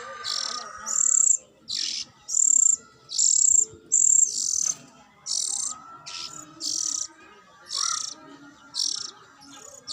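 Caged lovebirds giving short, high-pitched chirps, repeated about every two-thirds of a second, over a fainter lower warbling.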